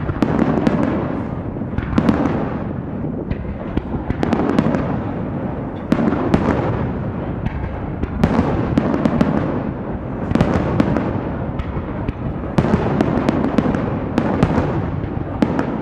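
Aerial fireworks shells bursting in quick succession: deep bangs about every second or two, with a steady run of sharp crackling cracks between them.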